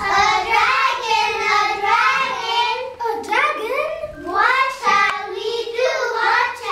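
Young children singing a song in high voices.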